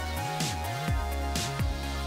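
Upbeat electronic background music with a steady kick-drum beat, about two beats a second, and a held synth note over it.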